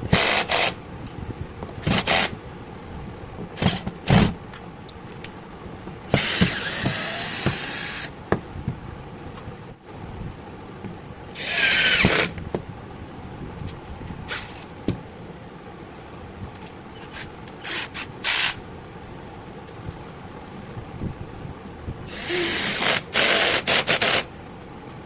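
12 V cordless drill run in a series of short trigger bursts, the longest lasting about two seconds, with one burst near the middle falling in pitch.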